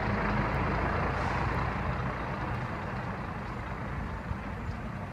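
Scania P380 heavy-haul truck's diesel engine running steadily with the rumble of the loaded lowboy trailer, gradually getting quieter. A couple of light clicks come near the end.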